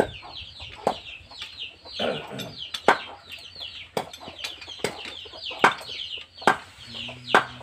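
Chicks peeping rapidly and continuously in high, falling chirps, with sharp knocks about once a second.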